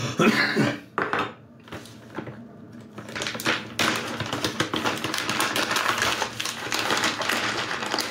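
Plastic snack bag of hazelnuts being pulled open and handled, a dense crinkling crackle that starts about four seconds in and keeps going, after a brief vocal noise at the start.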